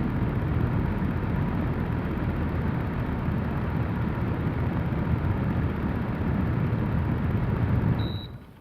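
AVIAIR R10 air circulator fan blowing: a steady rush of air, heaviest in the low end. Near the end the sound falls away quickly, with a short high beep as it stops.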